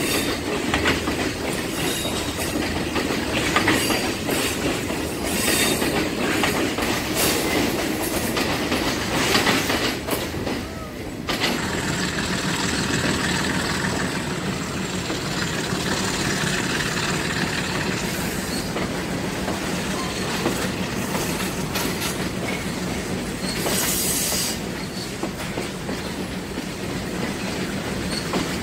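Passenger train running on the tracks, its wheels clicking over the rail joints with some squeal. After a break about eleven seconds in, a steady diesel train hum with wheel noise takes over.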